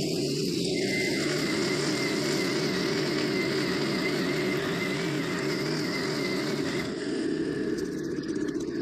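Stihl FS90R string trimmer's small 4-MIX engine running steadily at cutting speed, its spinning line cutting through tall grass. The sound eases slightly near the end.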